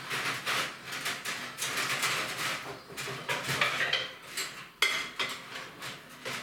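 Crockery and cutlery clattering in a kitchen sink during hand washing-up: irregular knocks of plates and bowls against each other, with a few sharp ringing clinks about four and five seconds in.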